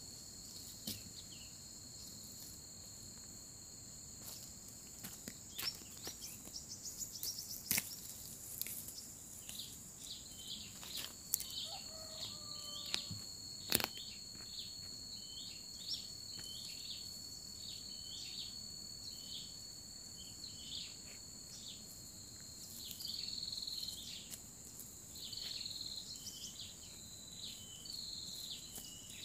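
Steady high-pitched drone of insects, with a short chirping call repeating about once a second from about a third of the way in. A few sharp clicks and rustles from hand-weeding in dry ground fall in the first half.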